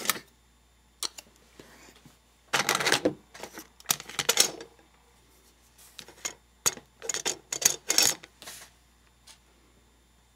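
Paper and card rustling and sliding as craft pieces are handled on a tabletop, in three short bursts, with a few single light clicks and taps between them.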